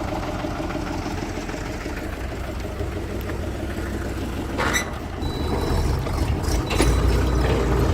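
Backhoe loader's diesel engine running steadily, with a few sharp knocks after about four and a half seconds and the engine getting louder near the end.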